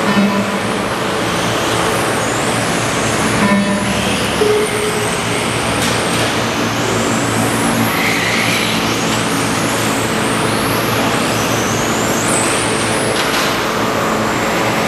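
Electric 4WD RC racing cars running on a track, their brushless motors whining and rising in pitch over and over as the cars accelerate, over a steady rush of tyre and drivetrain noise.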